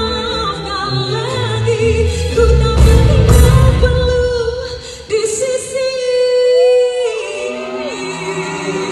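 A woman singing a slow ballad live into a microphone over band accompaniment; about five seconds in the band drops back while she holds one long note for about two seconds, then the accompaniment returns.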